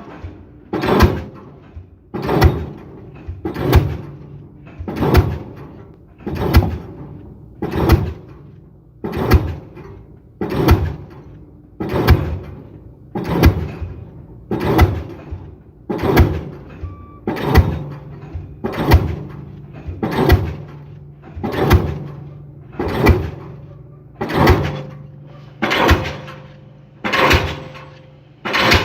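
Pile driver hammer striking a pile in a steady rhythm, about one heavy blow every second and a half, each ringing briefly, over the steady hum of its engine.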